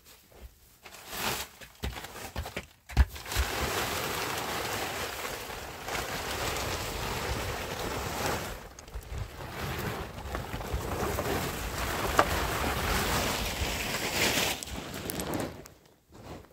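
Loud rushing noise on the microphone. It starts with a knock about three seconds in and cuts off shortly before the end.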